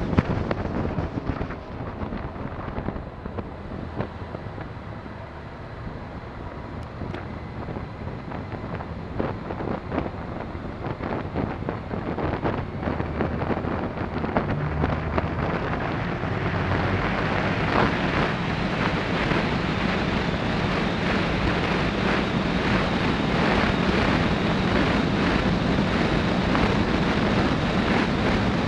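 Wind buffeting the microphone over a Honda VFR1200 motorcycle's V4 engine running at road speed. About halfway through, as the bike rides into a road tunnel, the engine note comes up and the whole sound grows louder.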